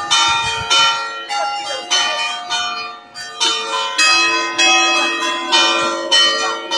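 Church bells ringing: several bells struck one after another, about two strikes a second, each note ringing on and overlapping the next.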